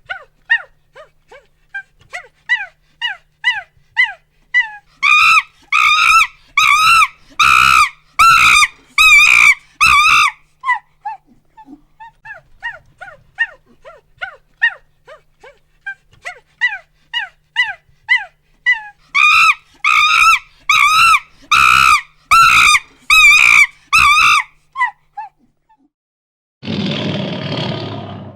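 An animal's rapid series of short calls, each falling in pitch, several a second. The calls twice build into runs of louder calls, about two a second. Near the end comes a short, rough, noisy sound, like the start of a roar.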